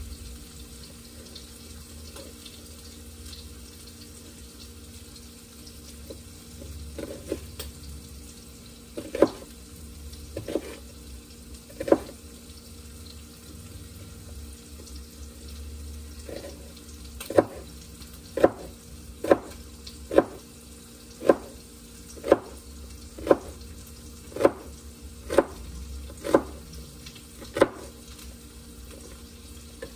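Knife chopping down onto a cutting board: a few scattered knocks, then an even run of about a dozen, roughly one a second, over a steady kitchen hum.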